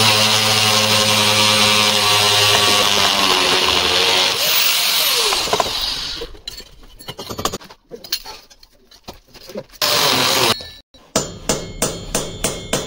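A power tool runs steadily and loudly for about six seconds, then dies away. It runs again briefly about ten seconds in, and a quick series of light knocks follows near the end.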